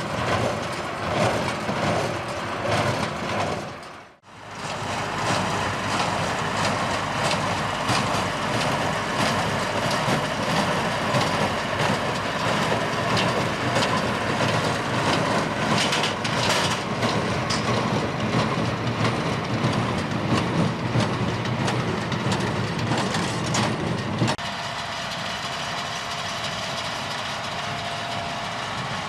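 Tractor-drawn hay baler at work, a steady mechanical clatter over the tractor engine. It cuts out briefly about four seconds in and changes abruptly to a duller, quieter running near the end.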